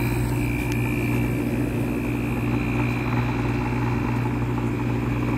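Vintage McGraw-Edison 5500 BTU room air conditioner running on low fan with its Copeland reciprocating compressor on, a quiet, steady hum with a faint high whine over it. The compressor has only just started and is still building head pressure.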